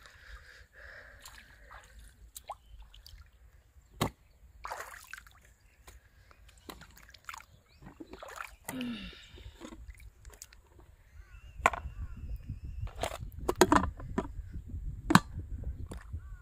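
Feet sloshing through shallow pond water, then plastic bucket lids being handled and pressed down, giving sharp clicks and knocks that come thickest and loudest in the second half.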